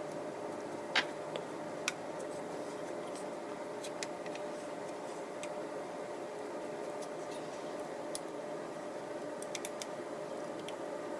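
Scattered small plastic clicks and light scratches as a model locomotive's body shell is pried and worked loose from its chassis by hand, the sharpest click about a second in and a quick run of clicks near the end, over a steady background hum.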